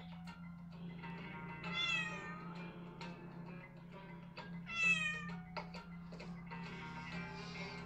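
A cat meowing twice, each meow about half a second long and falling in pitch, over film music from a television.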